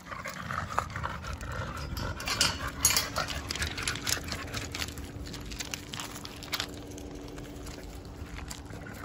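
Metal chain collars on two micro bully dogs jingling and clinking as the dogs sniff and move about, with paws scuffing on gravel. The sharpest clinks come in a cluster between about two and four seconds in.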